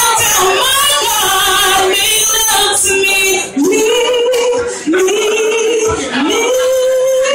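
A woman singing live into a microphone through the club's PA. In the second half she holds three long notes in a row, each one swooping up into its pitch.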